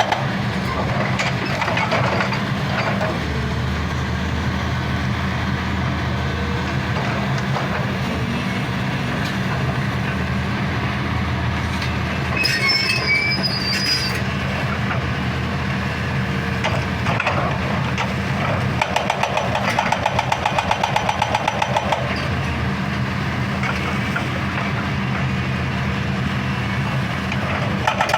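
Excavator's diesel engine running steadily, with a hydraulic breaker hammer pounding rock in stretches of rapid, even blows. A brief high squeal sounds about halfway through.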